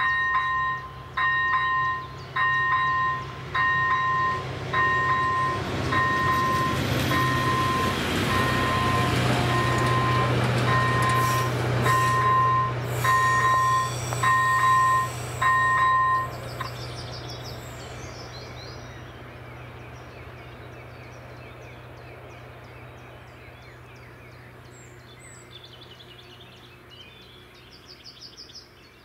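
Level-crossing electronic warning bell beeping about once a second in a two-tone pulse, warning that a train is coming, while a train passes with a rush of wheel and running noise; the bell stops about two-thirds of the way in as the crossing clears, and the train's low hum fades away.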